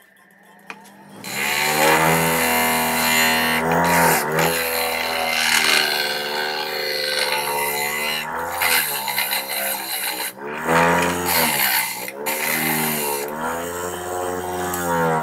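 Electric motor of a homemade grinding machine starting up about a second in and running with a dense grinding hiss. Its pitch sags and recovers several times, as it slows each time it is loaded.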